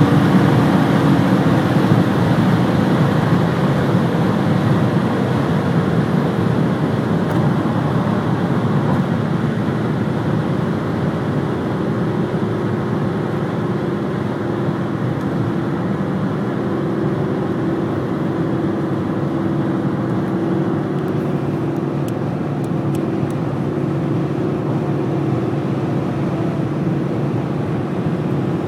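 Alfa Romeo 156 at high motorway speed, heard from inside the cabin: a steady drone of engine, wind and tyre noise that slowly falls in pitch and loudness as the car slows from about 210 to 150 km/h.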